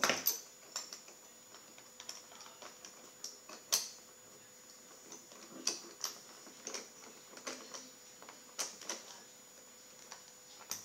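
Irregular small clicks and taps of a bicycle saddle's seat-post clamp being worked by hand onto the saddle rails, which it is reluctant to slide onto.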